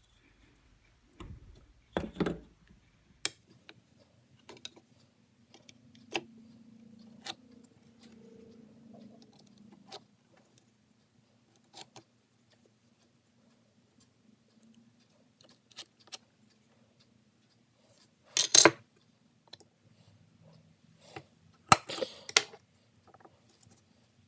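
Scattered clicks, taps and knocks of tools and a wooden workpiece being handled, with two louder clattering knocks near the end, the second a quick cluster of hits.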